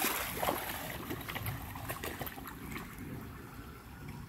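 A dog wading and splashing in a shallow creek, its legs churning the water in quick irregular splashes, busiest in the first second, then lighter sloshing over the creek's trickle.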